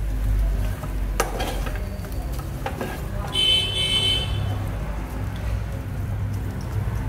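Wooden spatula stirring and turning dry semolina pulao in an aluminium pan: a soft rustle with a couple of sharp knocks against the pan, over a steady low hum. About three and a half seconds in comes a brief high-pitched toot lasting about a second, the loudest sound here.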